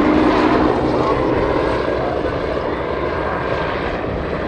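A propeller-driven light aircraft's engine and a Westland Scout helicopter's turbine and rotor, droning together as they fly past. The sound eases off a little after about a second.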